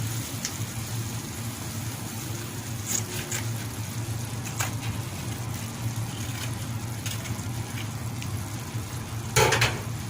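Flour-and-oil roux for béchamel sizzling faintly in a pot while it is stirred with a spoon, with a few light clicks of the spoon against the pot and a brief louder sound near the end.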